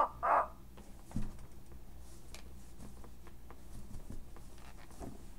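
Handling noise of a talking Disney Tarzan plush gorilla being bounced in the hand: soft rustling of fur and light taps. A short grunt-like burst of the toy's voice comes at the very start.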